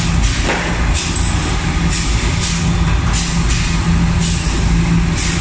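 Egg tray production line machinery running: a steady low hum with a pulsing drone, and short hisses coming irregularly every half second to a second.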